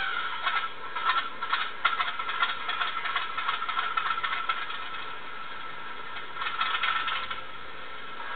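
Sound chip in an N gauge Graham Farish Class 37 model locomotive playing a diesel engine sound. It starts abruptly with a couple of seconds of irregular clattering, then runs steadily and swells briefly near the end.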